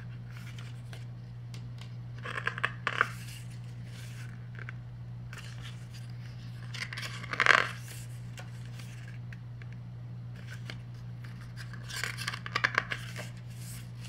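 Rustling and clicking of a CD album's paper booklets and plastic case being handled and leafed through, in three short bursts, the loudest about halfway through, over a steady low hum.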